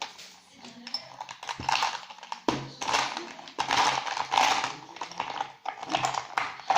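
Irregular clicking, tapping and scraping from handling and stirring a slime mix of glue, polystyrene beads and glitter in a container, with a faint steady hum underneath.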